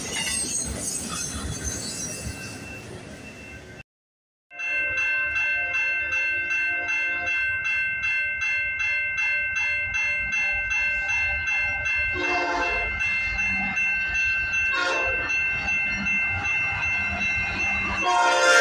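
Rumble of a passing autorack freight train's wheels, fading, until a cut about four seconds in. Then a crossing bell ringing steadily about twice a second while an approaching CN freight locomotive sounds its air horn: short blasts around twelve and fifteen seconds in, and a loud blast as it draws close at the end.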